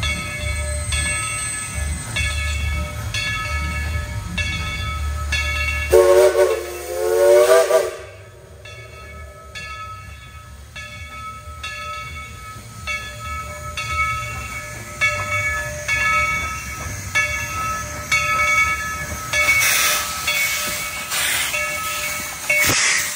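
Steam locomotive No. 70: its bell rings steadily, about one stroke every two-thirds of a second, over a deep rumble. About six seconds in, the steam whistle sounds two blasts that waver in pitch, the loudest part. Near the end there are bursts of steam hiss.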